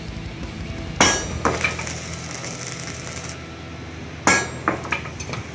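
Steel bars of a freshly welded grille clanking: two sharp metallic strikes about three seconds apart, each followed by a few lighter clinks, over a steady low hum.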